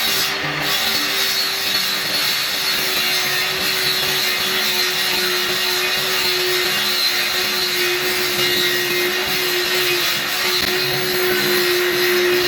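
Electric power tool working wood, running continuously with a steady motor hum under a dense, even hiss.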